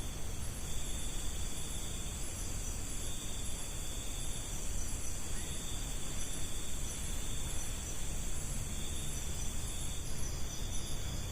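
Night insects such as crickets trilling steadily, with a high chirp repeating in an even rhythm over a low background hiss.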